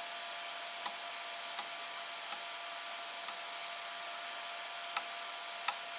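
Small slide DIP switches on a circuit board being pushed back one at a time with a pen tip: about seven sharp little clicks at uneven intervals. Under them runs a steady fan-like hiss with a faint whine.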